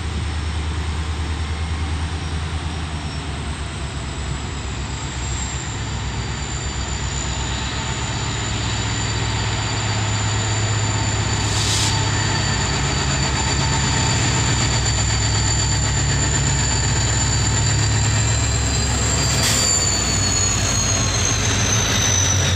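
Diesel locomotives of a goods train approaching and passing close by, their engines giving a steady low rumble that grows slowly louder. A thin high whine runs over it and drops in pitch near the end as the locomotives go past.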